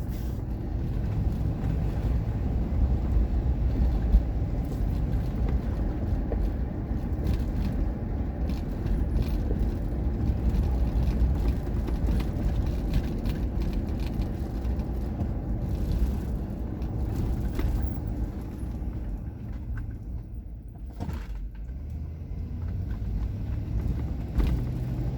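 Car interior noise while driving: a steady low road and engine rumble that eases off for a couple of seconds about twenty seconds in, then builds back up.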